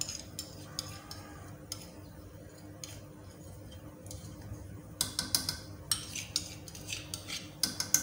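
A spoon clinking and tapping against a non-stick wok as tablespoons of tomato ketchup are scraped into a simmering gravy. The taps come sparsely at first, then thick and fast from about halfway through.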